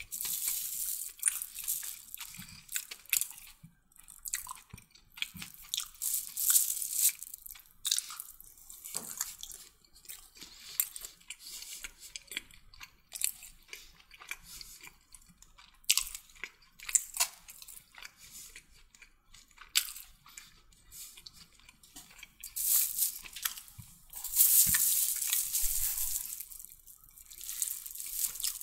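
Close-up eating sounds of someone chewing chicken kottu: irregular wet clicks, crunches and mouth smacks, louder in a few stretches.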